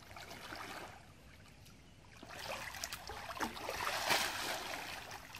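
Water sloshing and splashing as a man wading waist-deep hauls a wet cast net up out of the river, with water streaming and dripping from the mesh. It grows louder about two seconds in.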